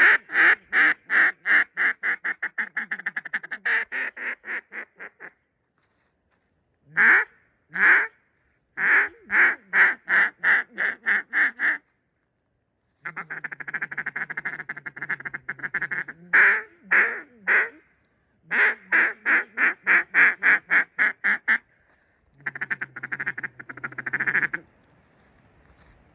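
Cut-down duck call blown in mallard hen sequences: a long run of about twenty quacks that fades off, shorter strings of quacks, and two stretches of fast chatter, with pauses between the sequences.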